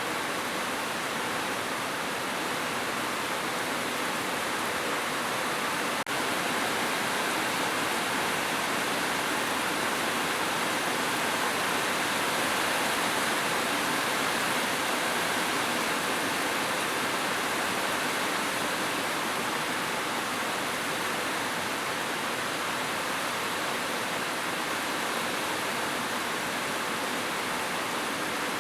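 Heavy rain falling steadily on a roof, an even, unbroken hiss.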